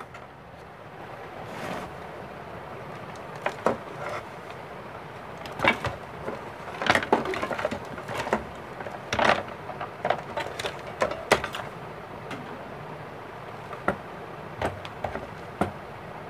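Irregular clicks, knocks and light clatter of objects being handled, in quick runs through the middle and scattered near the end, over a steady background hiss.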